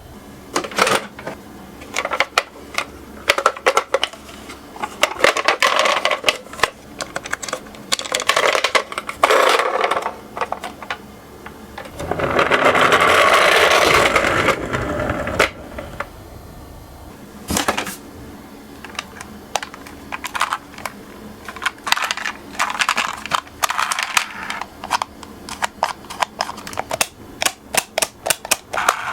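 Toy minicars clicking and clattering against a hard surface and one another, with about two and a half seconds of steady rolling noise near the middle as a car runs down the slope.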